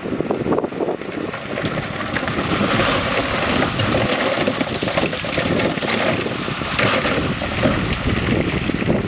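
Heavy diesel earthmoving machinery working, with the engine running under load and a dense clatter and scraping of rock throughout.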